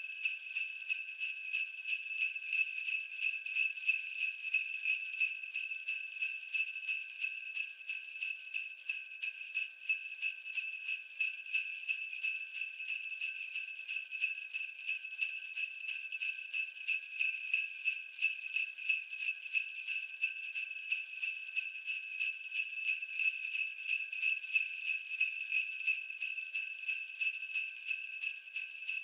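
Sleigh bells shaken in a steady rhythm at 90 beats a minute, a bright jingling that pulses evenly and never stops.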